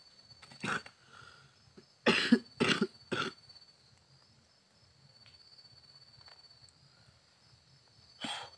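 A person coughing in short, harsh bursts: once, then three times in quick succession, then once more near the end. Insects chirr steadily at a high pitch behind them.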